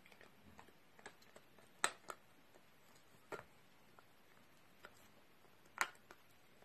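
Small dog gnawing a hard chew, its teeth giving irregular sharp clicks and cracks. The loudest come about two seconds in and again near the end.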